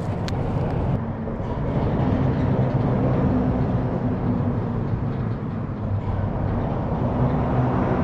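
Steady road traffic noise with a low engine hum, swelling slightly near the end as a vehicle passes.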